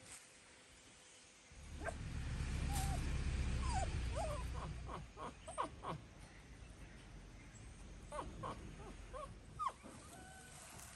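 A string of short, high squeaks and chirps from a small animal, many in quick succession from about four seconds in, over a low rumble that swells for a few seconds early on.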